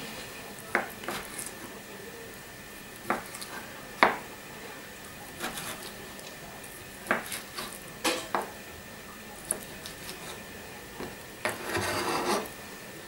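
Kitchen knife slicing a cooked chicken breast on a cutting board. The blade makes irregular single taps on the board, roughly one a second. Near the end comes a longer scrape of about a second.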